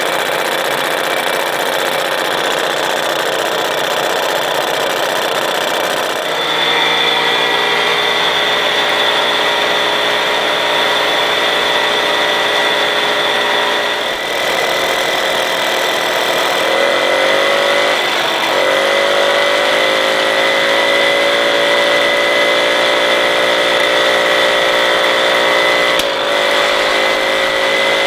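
Solex 2200 moped's single-cylinder two-stroke engine running steadily on a bench test. It is fitted with a big three-transfer-port 39.5 cylinder held back by a standard intake pipe. Its note steps up about six seconds in, then sags and picks back up a little past halfway.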